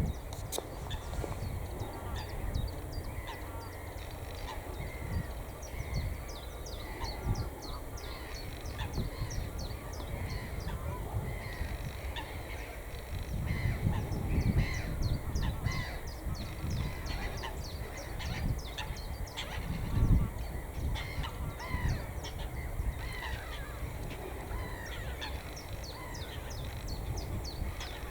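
Many wild birds calling at once, with short calls overlapping throughout, over a low rumble that swells about halfway through and peaks briefly about two-thirds in.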